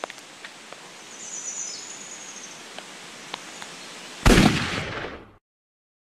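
Quiet outdoor ambience with faint scattered clicks and a thin high whistle about a second in, then a loud rush of noise about four seconds in that fades over a second and cuts off into silence.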